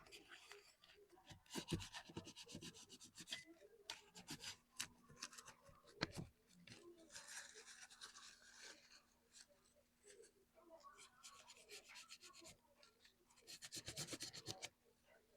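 Faint rubbing and scraping from small handwork, with scattered light clicks and taps; a faint steady hum comes in about four seconds in.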